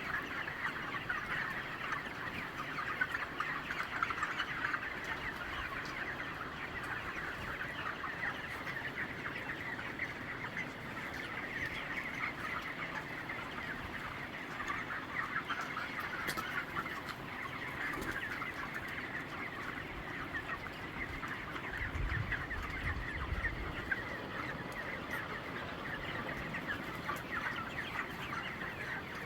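A large flock of chickens clucking, many overlapping calls forming a steady, continuous chatter. A brief low rumble comes in about three-quarters of the way through.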